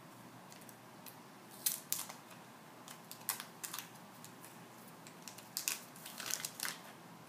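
Scattered light clicks and crackles, about ten in all, coming irregularly and some in quick pairs.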